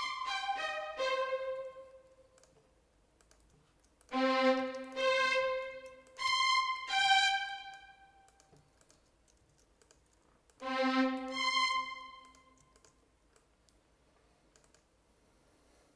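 Notation-software playback of sampled violins playing a short, fast arpeggio figure, heard in four short bursts with quiet gaps between them. Faint computer keyboard and mouse clicks sound in the gaps.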